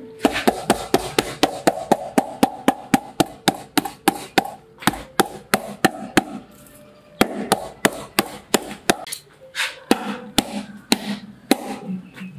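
Steel cleaver chopping against a thick wooden chopping block in quick, even strokes, about four a second. After a short pause about six seconds in, a brief run follows, then slower, uneven strokes.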